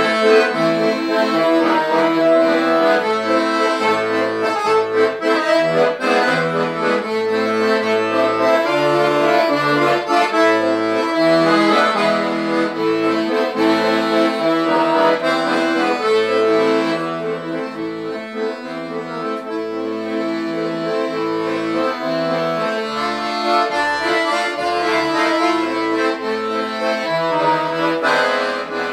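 Piano accordion playing a tune: a melody over held chords, with the bass notes changing under it every second or so.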